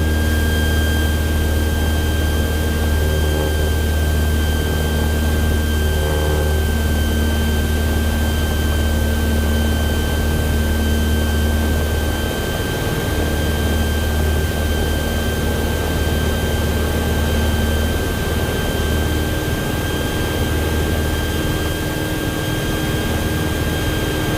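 Cessna 172's piston engine and propeller droning steadily, heard inside the cabin in level flight, with a steady thin high whine over it. The low drone eases slightly about halfway through.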